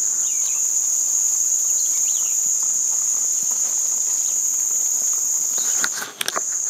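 A steady, high-pitched chorus of insects sounding without pause. It breaks off briefly about six seconds in, with a few sharp clicks.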